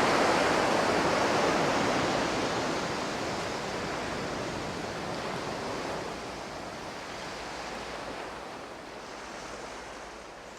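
Ocean surf: a steady wash of breaking waves, loudest at first and slowly fading away.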